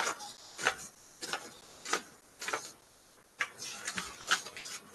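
Sheets of paper being handled and leafed through, a short crisp rustle about every half second.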